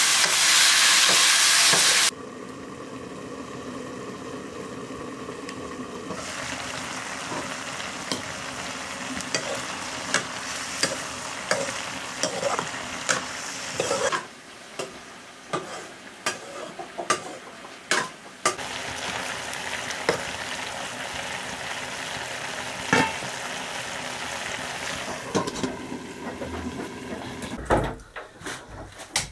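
Chopped chayote frying in a wok, sizzling as a metal ladle stirs it, with the ladle scraping and clinking against the pan. The sizzle is loud for about the first two seconds, then drops to a quieter, steady sizzle under the ladle's scrapes and knocks.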